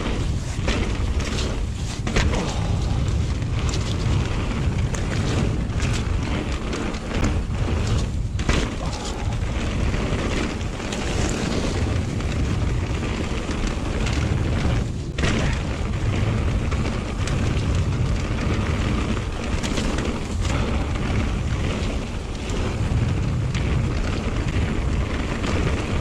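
Strong gusty wind buffeting a chest-mounted action camera's microphone, a steady low rumble, over the noise of a mountain bike rolling down a wet trail.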